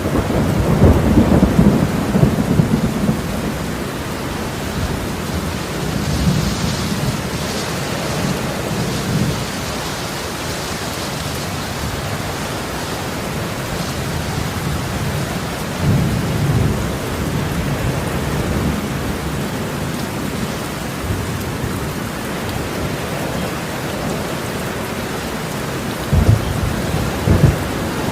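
Steady heavy rain falling, with low rumbles of thunder swelling several times: strongest at the start, again about halfway through, and twice briefly near the end.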